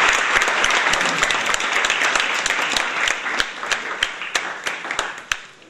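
Audience applauding, the dense clapping thinning out to a few scattered claps that stop about five seconds in.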